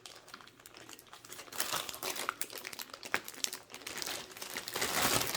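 Plastic packaging bag crinkling and rustling as it is handled and pulled free of its tape. The crackles are irregular and get busier and louder near the end.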